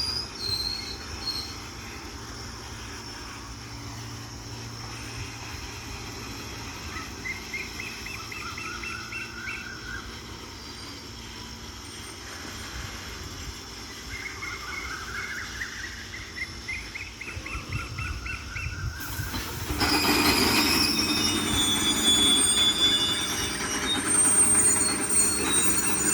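Indian Railways freight train rolling with its brakes applied: wagon wheels and brake blocks squeal in runs of short squeaks that step up in pitch, then grow much louder near the end with harsh grinding and several high squeals.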